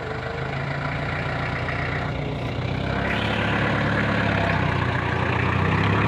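Mitsubishi L300 pickup's engine running under the load of a bed full of red bricks, rising in pitch in steps and getting steadily louder as it revs harder.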